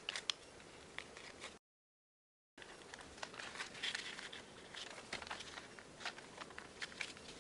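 Faint rustling and small crinkles of origami paper being pressed and creased by hand, cut by about a second of dead silence a little over one and a half seconds in.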